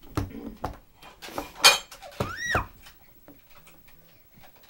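A baby slapping his hands on a plastic high-chair tray: a quick, uneven series of slaps and knocks, the loudest about one and a half seconds in. A short high squeal rises and falls about two and a half seconds in.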